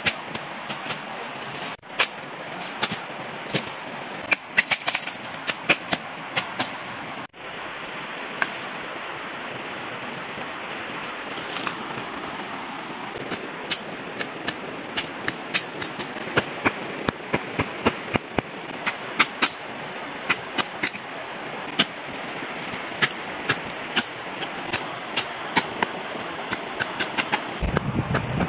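Wood and plant stems crackling and snapping: a steady run of irregular sharp cracks over a constant hiss. A low rumble comes in near the end.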